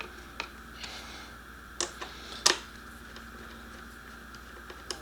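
A few scattered sharp clicks and taps from an Allen screwdriver and small screws with plastic washers being handled and fitted, the loudest about two and a half seconds in, over a faint steady hum.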